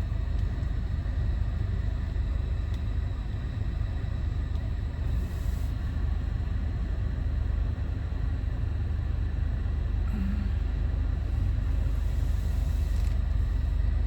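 Steady low rumble of a vehicle's engine and road noise heard from inside the cabin.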